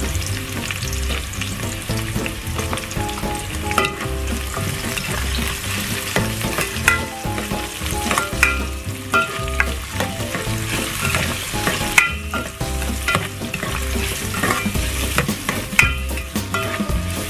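Sliced onion and ginger sizzling in hot oil in a stainless steel pot, with a white utensil scraping and tapping against the pot as they are stirred. The sizzle is steady, broken by frequent short clicks from the stirring.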